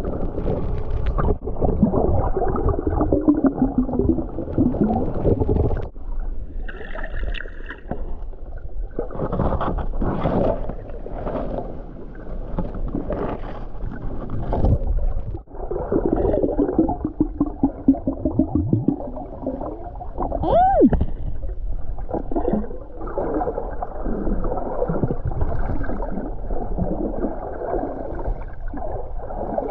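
Muffled underwater sound while snorkeling over seagrass: water sloshing and gurgling around the microphone, with wavering low hums coming and going.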